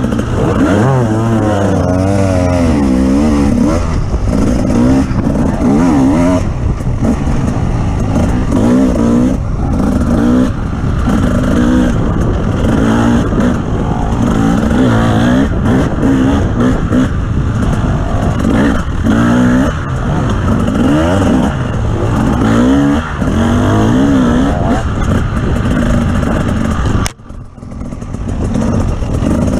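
Off-road vehicle engine running under load while riding, its pitch constantly rising and falling with the throttle. About 27 seconds in, the sound drops off briefly.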